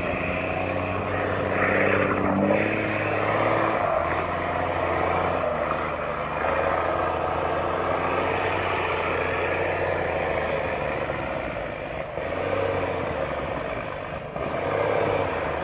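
Off-road truck engine working hard as the truck fords a river and climbs out up the bank. The revs rise about two seconds in, then hold steady under load.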